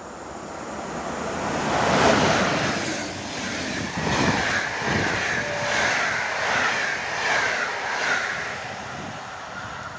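An EP07 electric locomotive hauling an InterCity passenger train passes through the station at speed. The noise builds to its loudest about two seconds in as the locomotive goes by. Then the coaches roll past with a rhythmic beat of wheels about every three-quarters of a second and a steady high rail hiss, easing slightly near the end.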